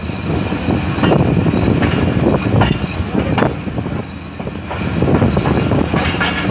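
Passenger train pulling out of a station: a steady rumble from the diesel locomotive and moving carriages, with scattered short clanks through it.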